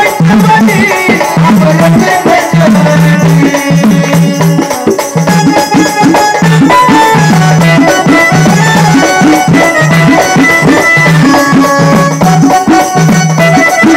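Marathi jagran-gondhal folk music: a loud ensemble with drums and rattling percussion under a short melodic phrase repeated over and over in a steady rhythm.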